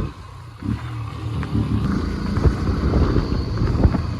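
Motorcycle ridden over a rough dirt road: a steady engine note drops away at the start, leaving an uneven low rumble with repeated knocks and rattles.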